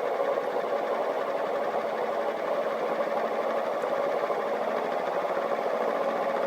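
The small motor of an auto-flipping crystal paperweight award running steadily: an even, fast-pulsing whir.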